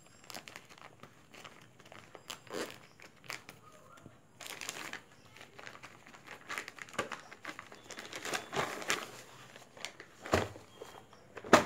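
White plastic courier mailer crinkling and rustling as it is handled and a paperback book is slid out of it, with a couple of sharp knocks near the end.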